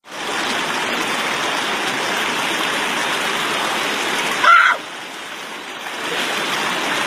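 Fast river rapids rushing steadily over boulders. About four and a half seconds in, a person's short cry rises briefly above the water.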